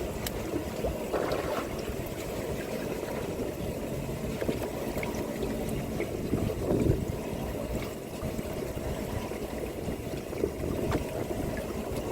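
Water sloshing against the hull of a fishing boat, over a low, steady rumble, with a few faint clicks.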